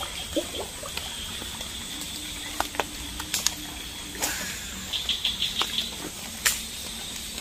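Outdoor pond-side ambience with a faint, steady high-pitched drone, scattered sharp clicks and taps, and a quick run of about six short high chirps about five seconds in.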